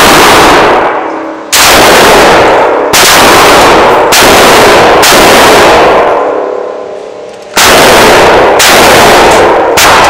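Gunshots in an indoor shooting range: about eight single shots, roughly a second apart with a longer pause in the middle, each one ringing on in the booth's echo.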